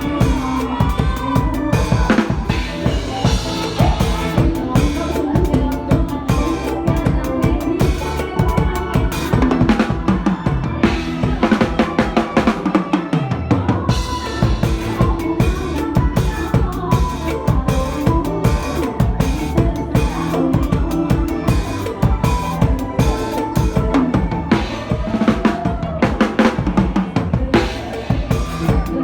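Drum kit played to a fast mor lam beat, with dense bass drum, snare and rimshot hits over a backing track carrying a melodic line. The low bass drops out briefly about halfway through, then returns.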